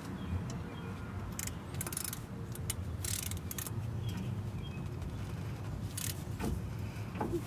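Gloved hands brushing and wiping over the face of a new brake rotor: a few short, soft scuffs over a low steady outdoor rumble.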